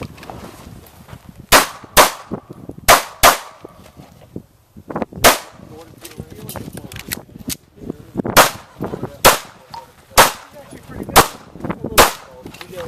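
Small back-up pistol fired in a timed USPSA stage: about ten loud shots, two quick pairs in the first few seconds, then a pause, then single shots roughly a second apart.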